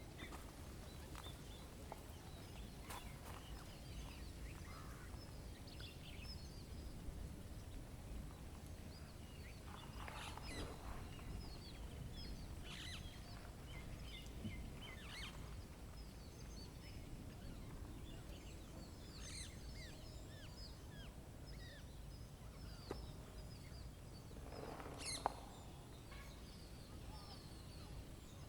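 Small wild birds chirping and calling again and again, with several harsher, fuller calls mixed in, the loudest about 25 seconds in, over a steady low rumble.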